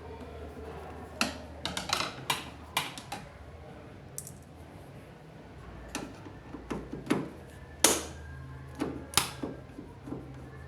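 Irregular clicks and knocks of hands handling the plastic top panel and parts of a front-loading washing machine during disassembly, with a sharper knock about eight seconds in.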